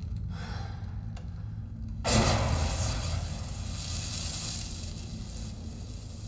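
Film sound effects played through a home-theater surround system with subwoofers: a steady low rumble, then about two seconds in a sudden loud rushing blast with deep bass that slowly fades away.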